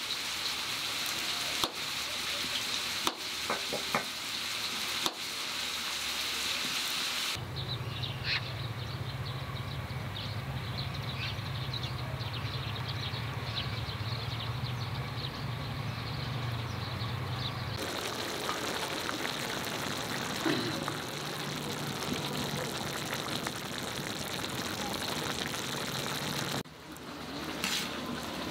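Sliced potatoes and tomato frying and sizzling in a wide metal pan over a wood fire, with a few sharp clicks of a metal spatula against the pan. Partway through, the sizzle gives way for about ten seconds to a steady low hum, then returns.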